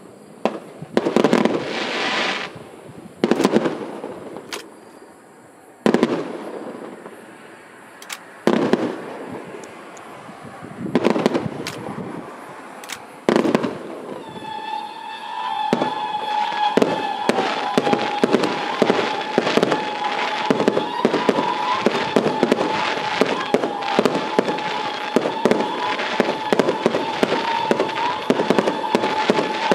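Aerial fireworks going off: single loud shell bursts with crackling tails every two to three seconds, then about halfway through a rapid, continuous barrage of bangs with a steady high tone running over it.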